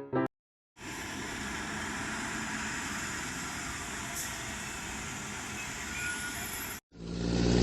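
Steady street traffic ambience, a constant rushing noise of passing vehicles. Near the end it breaks off, and a louder, low-pitched hum swells up for about a second and then cuts off sharply.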